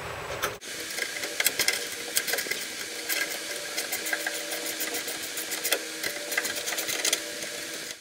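Ratcheting wrench clicking in quick, uneven runs as it tightens a nut onto a bolt, starting about half a second in.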